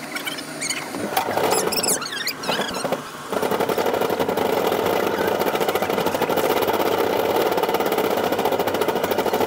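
Metal shopping cart rolling over a tiled supermarket floor, heard from the cart itself: its wheels and wire basket rattle in a dense, even buzz, with high squeaks in the first three seconds. The buzz steadies about three seconds in and cuts off suddenly at the end.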